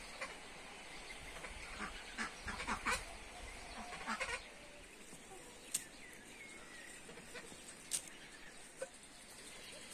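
Farm animals calling in a short run of bleat-like cries about two to four seconds in, followed by a few sharp clicks over a faint steady background hiss.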